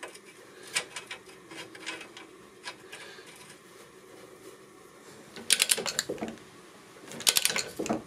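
A ratchet wrench clicking in two quick runs in the second half, spinning down the new nut on a tie rod end ball joint stud. Before that, a few light metal clicks as the nut is handled and started on the thread.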